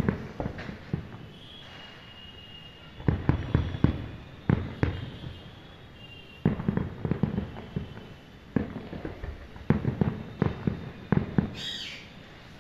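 Aerial firework shells bursting in rapid clusters of bangs and crackles, with short quieter gaps between the volleys.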